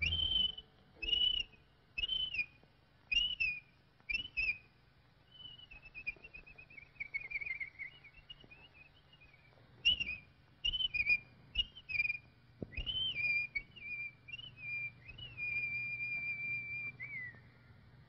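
Whistled bird-call chirps from a cartoon soundtrack: a run of short high chirps, a falling warbling run, more chirps, then one long held whistle that dips at its end, over a faint steady low hum.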